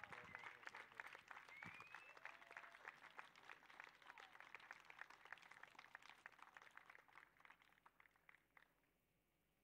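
Audience applauding, with a few cheers in the first couple of seconds; the clapping thins out and stops about a second before the end.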